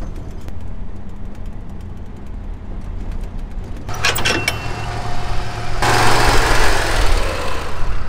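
Vehicle engine running steadily, heard from inside the cab. About four seconds in come sharp metal clanks from a steel tow hitch being coupled, then a loud, steady rushing noise.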